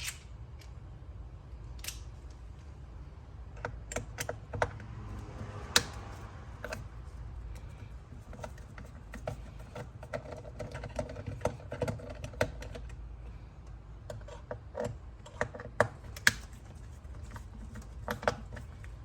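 Irregular small clicks and taps of a screwdriver bit and hard plastic steering-wheel parts being handled and worked loose, with a few louder knocks.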